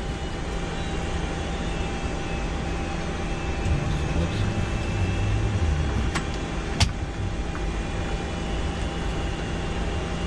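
Flight-deck noise of a Boeing 747-200 on the ground with its engines at idle: a steady rumble and hiss with a faint steady whine. A sharp click comes about two-thirds of the way in, with a fainter one just before it.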